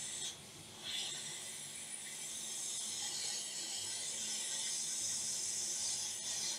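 Hot air rework station blowing a steady airy hiss over a circuit board, evaporating the alcohol out of freshly applied liquid rosin. The hiss drops away briefly just after the start, then runs on until it stops near the end.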